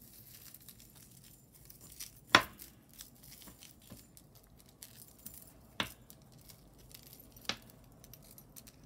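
Costume jewelry being handled on a table: faint small clicks and clinks of metal and glass pieces, with three sharper clicks, the loudest a little over two seconds in and the others near six and seven and a half seconds.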